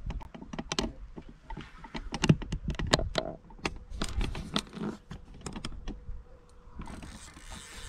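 Carp fishing reel clicking in quick, irregular runs as a hooked carp is played on a bent rod.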